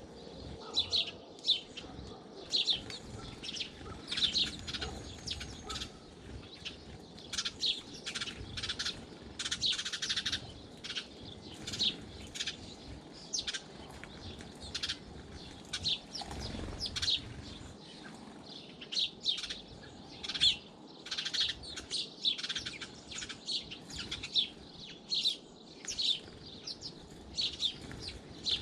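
Small garden birds chirping: many short, high chirps from several birds, coming thick and fast and overlapping.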